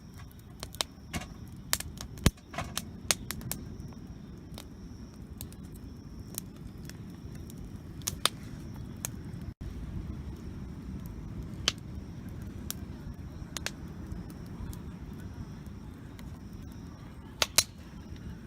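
Wood campfire crackling, with irregular sharp pops from the burning wood over a steady low rumble; the loudest pops come about two seconds in and near the end.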